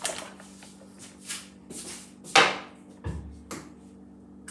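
Short rustling and knocking handling noises, several in a row, the loudest about two and a half seconds in, over a faint steady hum.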